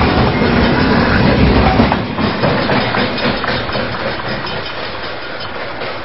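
Freight train cars rolling past close by, a lumber-laden flatcar among them, their wheels rumbling and clacking on the rails. About two seconds in the rumble drops off as the last car goes by, leaving a run of wheel clicks that fades as the train moves away.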